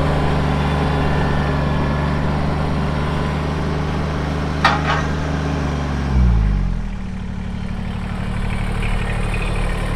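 Kubota BX23S tractor's three-cylinder diesel engine running steadily at high throttle while the backhoe works. About six seconds in, the engine speed falls and settles at a lower, steady speed. A single sharp knock comes a little before that.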